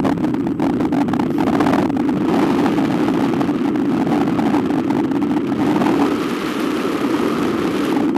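Steady rush of airflow over the microphone of a camera mounted on a hang glider in flight, a loud rumbling hiss that does not let up.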